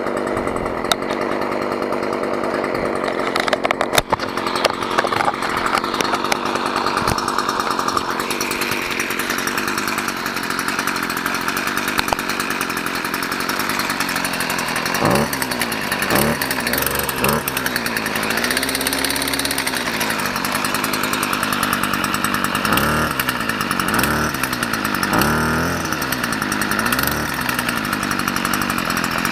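Stihl FS 55 brush cutter's small two-stroke engine running steadily, with a buzzing note. From about halfway through, its speed rises and falls several times.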